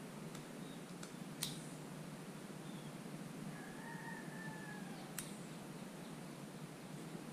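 A few sharp clicks from hands working a Fox Float Factory X2 rear shock's air can, over a steady low hiss. A faint, drawn-out high call sounds about four seconds in.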